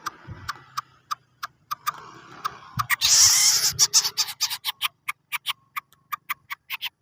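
Lesser coucal making an odd call: a string of sharp clicks, with a loud hissing burst about three seconds in.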